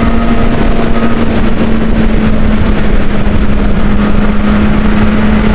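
Honda 600 inline-four motorcycle engine on its stock exhaust, running under way with a steady engine note that sags slightly and climbs again near the end, over heavy wind rumble on the microphone.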